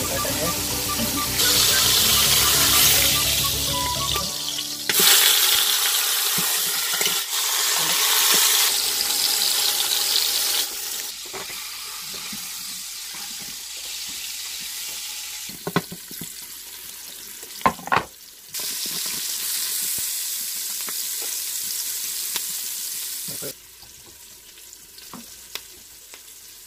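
Pork shoulder searing in hot oil in an electric pressure cooker's steel inner pot on sauté, a loud sizzle that starts and stops abruptly several times. A couple of sharp knocks come past the middle.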